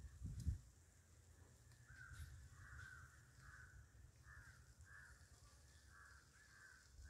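Crows cawing faintly, over and over, after a low thump about half a second in.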